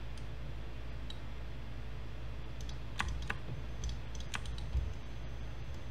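A few sharp clicks from a computer mouse and keyboard, mostly in the second half, over a steady low hum.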